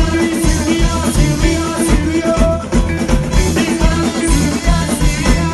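Live reggae band playing through a PA: electric guitars, keyboard and drum kit over a steady, evenly pulsing beat.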